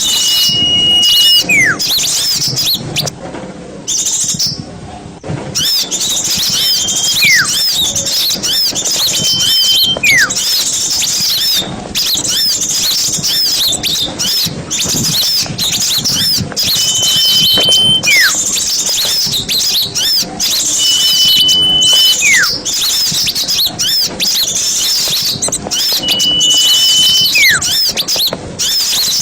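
Small songbirds singing a fast, continuous chattering twitter. About six times a clear whistle cuts through it: a held high note of about a second that drops in a quick downward sweep.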